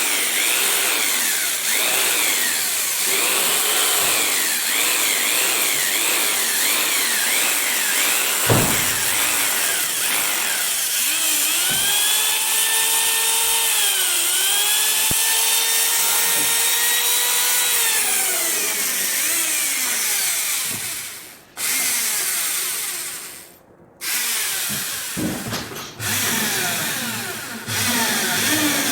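Electric power tool working wood, its motor whine rising and falling over and over as it bites and eases off. The sound drops out briefly several times near the end.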